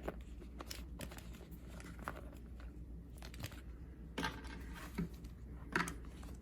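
Paper pages of a journal being handled and turned: soft rustling with a few light papery clicks, the pages thick with a rough, uneven pulp finish.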